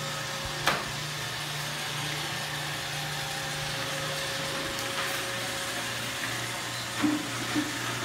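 Roomba robot vacuum running across a hardwood floor: the steady whirr of its motor and spinning brushes, with a faint steady tone. There is a sharp knock just under a second in, and a few short louder sounds near the end.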